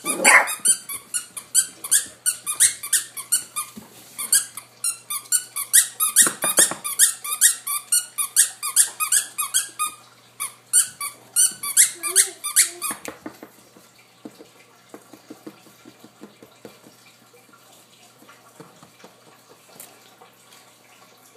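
Rapid high-pitched squeaks, several a second, during a young puppy's play, running for about the first dozen seconds and then stopping. Faint, scattered soft taps follow.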